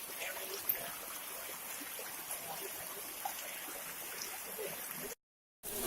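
Steady rush of running water from a hill stream, with faint distant voices. The sound drops out for about half a second near the end.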